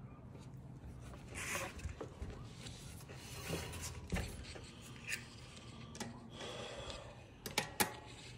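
Faint clicks, rustles and scrapes of hands and a tool working on a bicycle's disc brake caliper, with two sharper clicks near the end.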